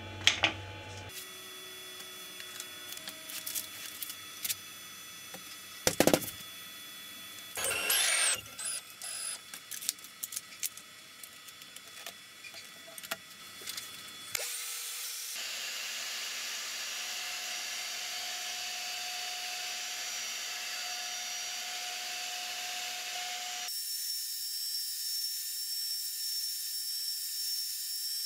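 Knocks, taps and rubbing as a piece of particle board is handled and fixed down on the CNC's wooden spoilboard. About halfway through, a Makita router on a CNC machine starts running steadily with a dust-collection vacuum as it carves the particle board; the sound shifts abruptly twice, once more near the end, where a high steady whine comes in.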